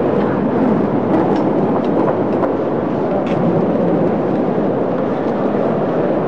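Steady murmur of a large crowd echoing in a big hall, with a few faint clicks.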